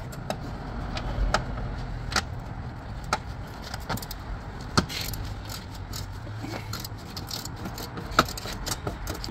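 Irregular metallic clicks and clinks of a hand ratchet and socket taking 10 mm nuts off behind the plastic wheel-well splash guard, the sharpest about five and eight seconds in, over a low steady hum.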